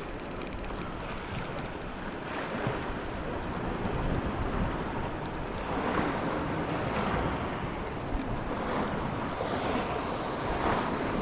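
Sea waves washing, with wind buffeting the microphone: a steady rushing that swells every few seconds.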